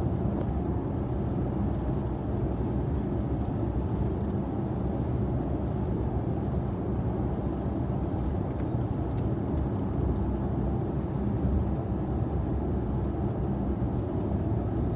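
Steady road and engine noise inside a moving car's cabin: an even low rumble with no change.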